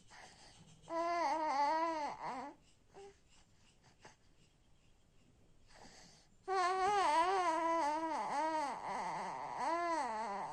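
A baby boy's wavering, sing-song whine as he falls asleep: a short stretch about a second in, then a longer one from the middle on, its pitch swaying up and down.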